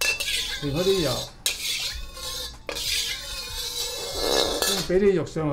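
Stainless steel wok spatula scraping around a carbon steel wok as it swirls the oil, in about three long strokes with brief breaks between them.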